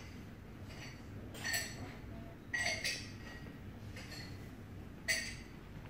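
Scattered clinks of dishes and glassware, several short ringing knocks a second or two apart, over a low steady room hum.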